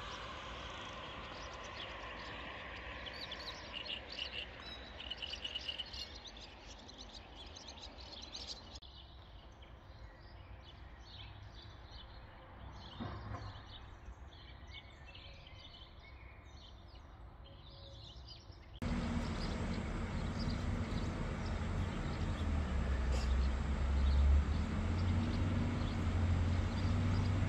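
Small birds chirping over quiet outdoor background noise. About two-thirds of the way in, the sound jumps to a louder, steady low rumble with a hum.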